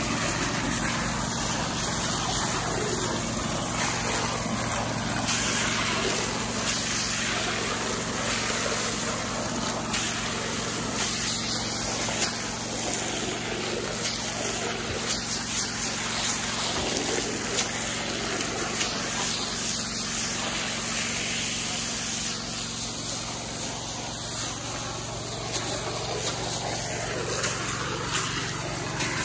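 Small Robin engine running steadily at a constant speed, driving the water pump, with muddy water from the hose rushing and splashing over gravel.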